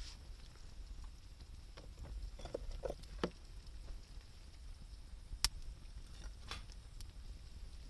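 Wood campfire burning in the rain: scattered crackles and a few sharp pops over a low steady rumble.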